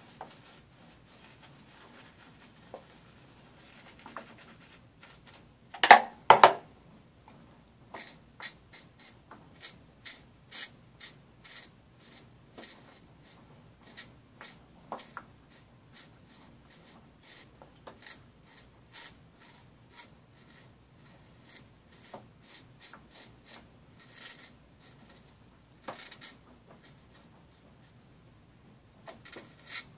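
Straight razor scraping through lather and stubble in many short strokes, about one or two a second, after a few seconds of a shaving brush faintly swirling lather. Two loud sharp knocks come about six seconds in.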